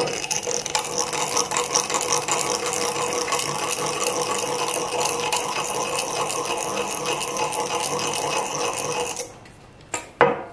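Small hand-held power tool running continuously on a small metal part, a busy fast rattle that cuts off abruptly about nine seconds in. Two sharp clicks follow near the end.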